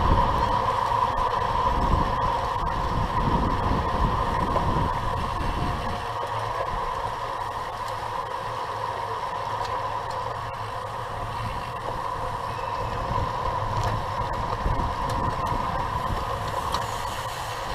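Wind and road noise on a camera mounted on a racing bicycle riding in a pack: low buffeting that eases about six seconds in as the speed drops from about 30 to 22 mph, over a steady hum.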